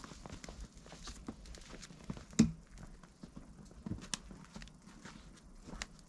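Footsteps in snow, irregular soft steps and knocks, with a single loud thump about two and a half seconds in.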